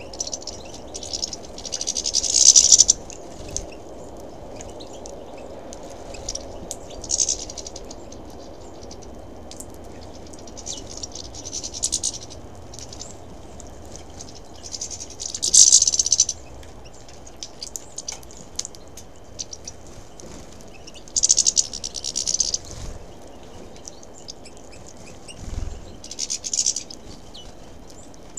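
Finches at a seed feeder, mostly European goldfinches, twittering in high-pitched bursts of about a second every few seconds, with light clicks and taps from birds pecking at seed.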